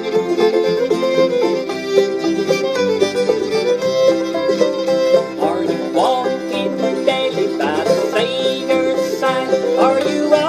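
Old-time string band music: fiddle and banjo played together over acoustic guitar, with sliding fiddle notes in the second half.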